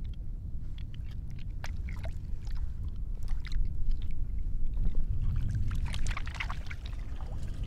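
Water ambience: a steady low rumble with scattered splashes and trickling, growing busier and louder about four to seven seconds in.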